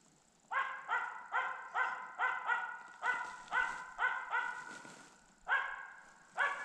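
Bird-hunting dog bay-barking in quick runs of about two to three barks a second, with a short pause near the end. This is the steady 'ståndskall' of a dog holding a treed capercaillie hen.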